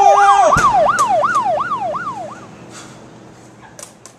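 Police siren in fast yelp mode, its pitch sweeping rapidly up and down about three times a second, with a short steady horn blare at the start; it fades away about two seconds in.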